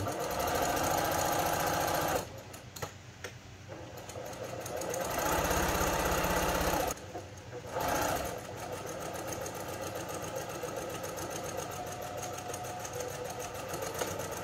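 Brother PQ1500 straight-stitch sewing machine stitching through a thick layered cloth pad in stop-and-go runs. A burst of about two seconds, a pause, a longer run that speeds up, a brief burst, then steadier, softer stitching.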